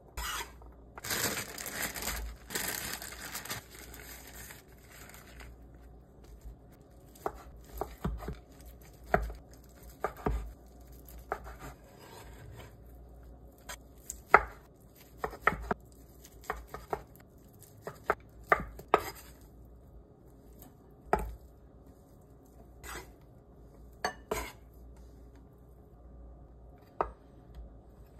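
Chef's knife on a bamboo cutting board. About a second in, a few seconds of scraping as the diced green pepper is swept up with the blade. Then scattered sharp knife taps on the board as ham slices and hot dogs are cut through, some single and some in quick runs.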